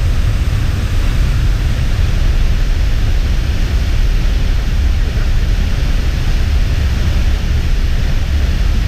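Steady roar of a waterfall close by: an even rushing noise with a heavy low rumble.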